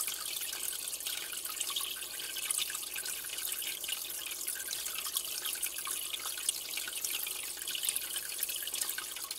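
Aquarium water trickling and bubbling steadily, a dense patter of small drips and pops.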